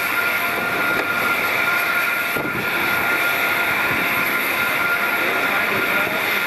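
Steady jet aircraft noise: a loud, even rushing with a high, steady whine over it.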